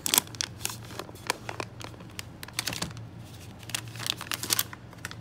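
Paper-and-plastic sterilization pouch being handled, crinkling and rustling with irregular light clicks, busiest about four seconds in.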